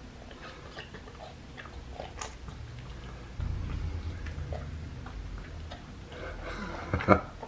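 Black-capped capuchin monkey drinking juice from a plastic sippy cup: small wet sucking and mouth clicks at the spout with some handling of the cup, and a cluster of sharper clicks near the end, the loudest about seven seconds in.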